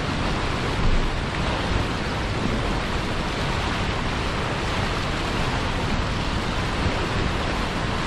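Turbulent whitewater churning and rushing, a steady, even wash of water noise with no let-up.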